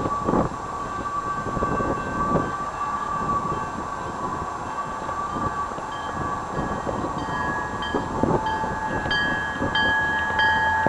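Approaching Canadian Pacific freight train's diesel locomotives sounding a long steady horn, joined about halfway through by a run of evenly repeated bell dings, over rumble and wind on the microphone.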